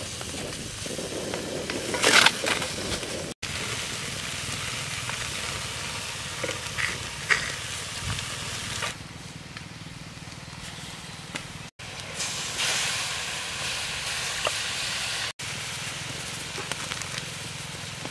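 Eels frying in a steel wok over a wood fire: a steady sizzling hiss with crackling, a louder burst about two seconds in, and a few abrupt cuts in the sound.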